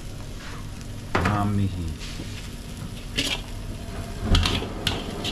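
Fried noodles (mie goreng) sizzling in a large wok while a long metal ladle stirs them, scraping and clinking against the pan several times in the second half.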